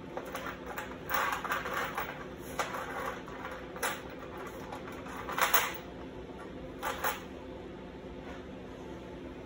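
Steel chain links clinking and rattling against a steel sheet as they are shifted into place, in a series of short rattles, the loudest about five and a half seconds in.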